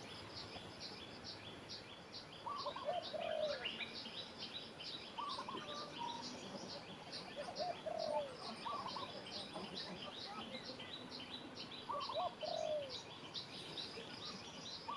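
Outdoor birdsong: a dove cooing a short phrase about every three seconds over a steady run of rapid high chirping, several chirps a second.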